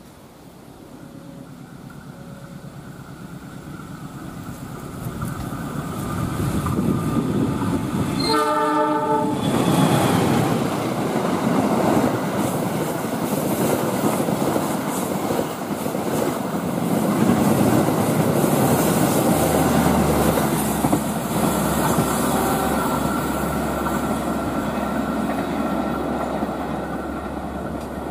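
Passenger train hauled by a KAI diesel-electric locomotive approaching at speed, growing louder. It sounds its horn in a single blast of about a second, then passes close by with sustained loud wheel and rail noise.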